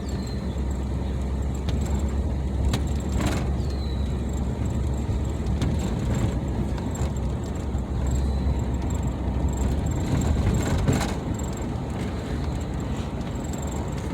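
Steady low rumble of a car's engine and road noise heard from inside the cabin while driving slowly, with a couple of brief knocks.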